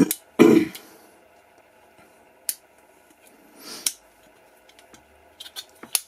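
Sharp metallic clicks of stainless multi-tool implements (Leatherman Supertool 300 and Charge TTi) being unfolded and snapping into place as the files are pulled out, with a few clicks in quick succession near the end. A brief, louder handling noise comes about half a second in.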